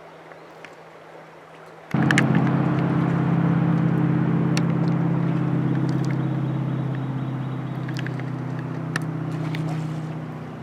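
An engine running at a steady pitch, starting abruptly about two seconds in and slowly fading, with a few faint clicks over it.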